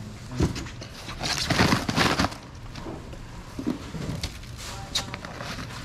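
Crushed ice crunching and rattling as fish are pressed and laid out on a basin of ice. The loudest run of crunching comes about a second and a half in, with scattered clicks and knocks around it.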